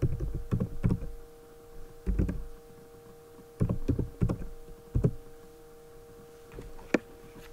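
Computer keyboard keystrokes, typed in short scattered clusters with pauses between them, over a steady electrical hum.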